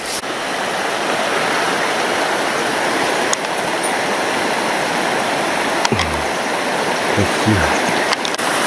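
Steady rushing of water pouring over a waterfall on a taiga river.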